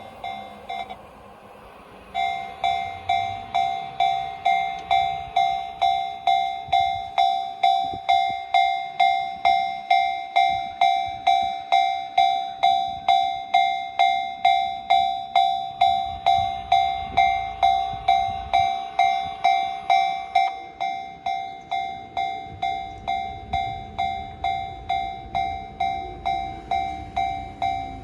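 Japanese level crossing warning bell ringing about twice a second. It breaks off briefly near the start, then resumes. A low rumble of a train passing the crossing builds under the bell in the second half.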